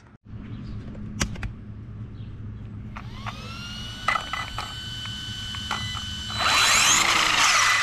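Brushless RC motor and ESC (Hobbywing XR8 with a 4074-size motor) in a Traxxas Maxx, after two sharp clicks. About three seconds in, a whine rises in pitch and then holds steady. It gets louder as the motor revs harder near the end.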